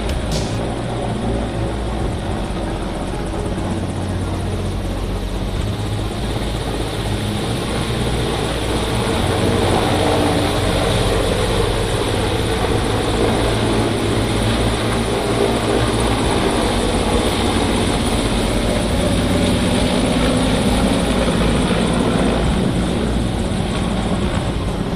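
Mil Mi-17 military transport helicopter flying close by, its main rotor chopping steadily over the whine of its turbine engines; the sound grows louder about eight seconds in.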